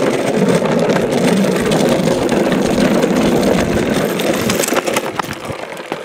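Hard plastic wheels of a child's ride-on toy rolling over rough asphalt: a steady rumble that eases off shortly before the end.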